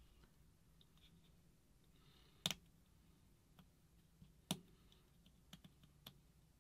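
Faint, scattered clicks and ticks of fingers working at a paintball marker's grip frame and circuit board, with two sharper clicks about two and a half and four and a half seconds in.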